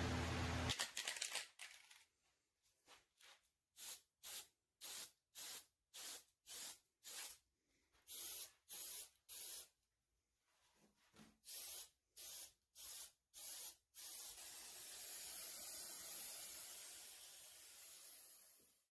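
Aerosol can of spray lacquer hissing in short squirts, about two a second, then in one continuous spray of about five seconds near the end. A low hum cuts off within the first second.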